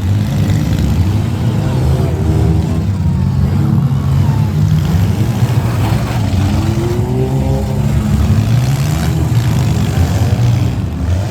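Several minivan engines revving and running together in a demolition derby, their pitches rising and falling as the vans accelerate and back up.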